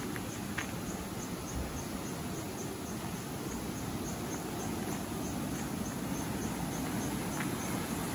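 Steady low rush of a swollen, muddy stream pouring white over a rocky ledge, growing louder toward the end. An insect chirps faintly and evenly, about three pulses a second.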